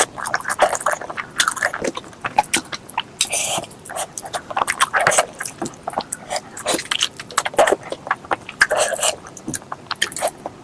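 A person chewing and smacking food close to the microphone: a dense, irregular run of wet clicks and smacks.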